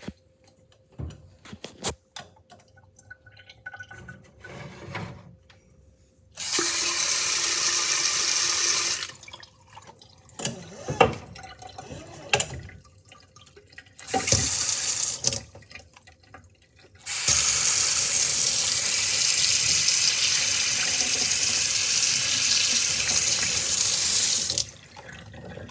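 Kitchen faucet running into a stainless steel sink, turned on three times: briefly about six seconds in, again briefly, then a long run through most of the second half, pouring over small plastic toy toilets. In the quieter gaps, sharp clicks and knocks of the plastic toilets being handled on the sink's wire rack.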